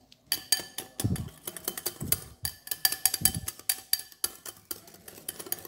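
Wire balloon whisk beating a thick dalgona coffee mixture of coffee, sugar and hot water in a glass bowl: rapid clicks and clinks of the wires against the glass, with three low thuds about a second apart as the mixture thickens into a whipped, frosting-like foam.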